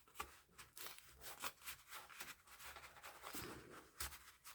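Faint rustling and light ticks of paper and card being handled.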